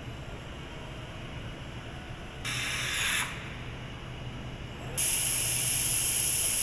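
Factory hum with hissing, like compressed air or spray: a short hiss about two and a half seconds in, then a louder steady hiss from about five seconds in.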